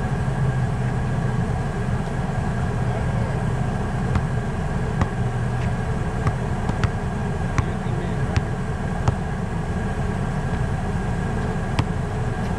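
A steady low hum like an idling car engine runs throughout. From about four seconds in, a basketball bounces on the asphalt court several times at uneven intervals, each bounce a short sharp knock.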